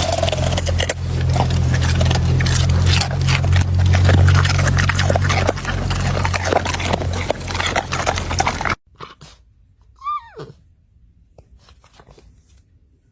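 Loud rumbling noise with many scattered knocks that cuts off abruptly about nine seconds in. About a second later comes a single dog whine that slides steeply down in pitch, followed by faint clicks near the end.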